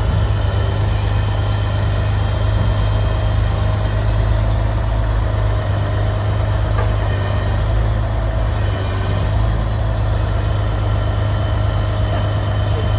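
Western Star truck's diesel engine running steadily to drive its hydraulic knuckle-boom grapple crane while the boom swings and lifts the grapple: a low steady drone with a thin steady whine over it.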